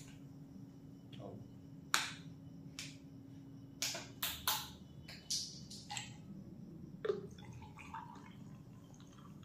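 A plastic soda bottle handled, with several short, sharp clicks and knocks. About seven seconds in, orange soda starts pouring from the bottle over ice into a glass beer mug.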